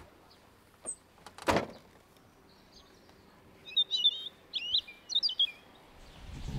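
A single thump about a second and a half in, as the car's rear hatch is shut. Then, from about four seconds in, birds chirping in a run of short, quick calls.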